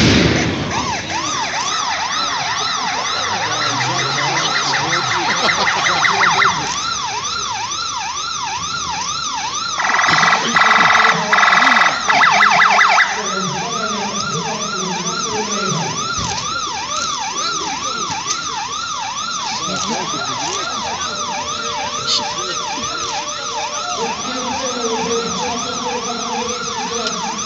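Several emergency-vehicle sirens sounding together, each sweeping rapidly up and down over and over. About ten seconds in, a loud horn blasts three times over roughly three seconds, over the sirens.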